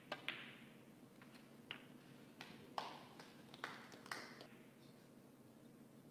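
Faint snooker shot: the cue tip clicks against the cue ball and the cue ball clicks into the black right after, potting it. A string of further sharp clicks and knocks follows over the next few seconds.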